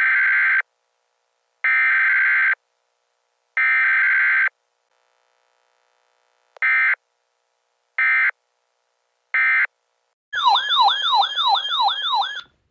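Emergency Alert System SAME header: three bursts of buzzy digital data screech about a second apart, then after a pause three shorter bursts. These are followed near the end by a loud warbling alert tone that sweeps up and down about four times a second for two seconds, then cuts off.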